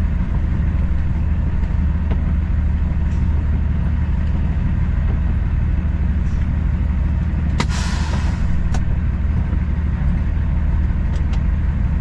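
Parked semi truck's diesel engine idling, a steady low drone heard from inside the cab. A brief hiss comes about eight seconds in.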